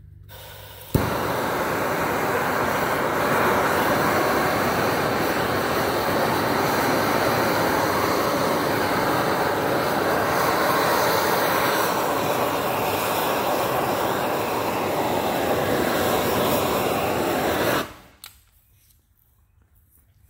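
Gas-fired shrink-wrap heat gun burner lighting with a click about a second in, then running with a loud, steady flame rush as it heats and shrinks the plastic pallet wrap. It shuts off suddenly near the end.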